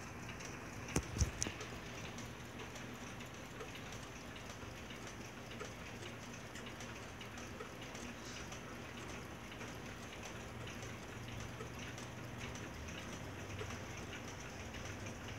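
A shelf of many clocks ticking at once, out of step with each other, making an irregular patter of faint ticks. A couple of louder knocks about a second in.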